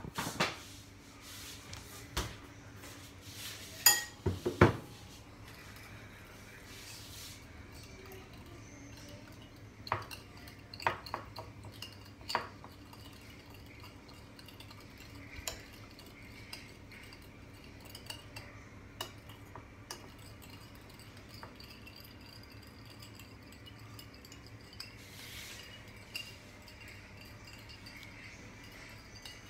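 Metal spoon clinking and scraping against a ceramic bowl as a sauce is stirred, with a cluster of sharp clinks in the first five seconds, the loudest about four seconds in, another group around ten to twelve seconds in, and only light scattered ticks after that.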